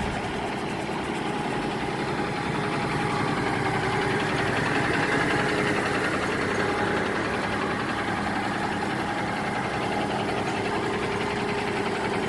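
Cummins ISX diesel engine of a semi truck running steadily on the road, a deep hum that swells slightly a few seconds in.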